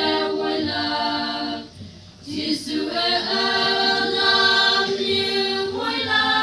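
Young women's choir singing a hymn a cappella in harmony, in held chords. There is a short breath about two seconds in, then a long sustained chord near the end.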